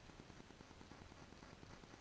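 Near silence: a faint, steady low rumble and hiss with no distinct events.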